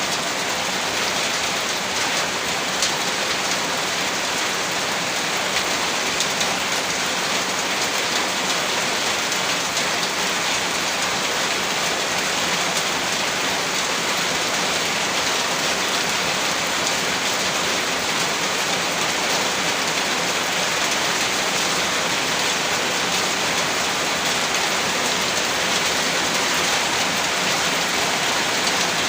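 Heavy rain falling steadily, a dense even hiss of rain on surfaces with scattered individual drop ticks.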